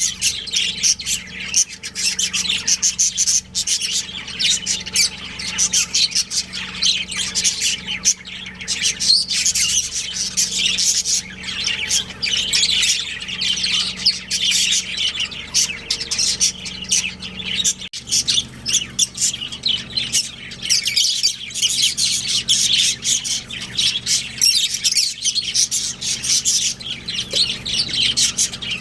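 Several budgerigars chirping and chattering at once, a dense, continuous stream of rapid high chirps, with a faint steady low hum beneath.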